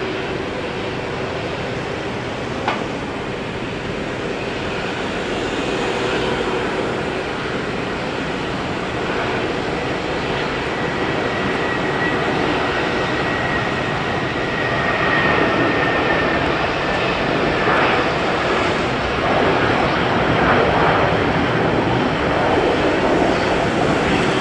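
Jet airliner engines running: a steady rush of noise with a high whine that holds for several seconds in the middle, growing slightly louder toward the end. A single short click about three seconds in.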